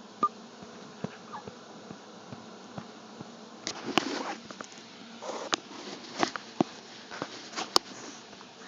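A person hiccupping: several short, sudden hics at irregular spacing.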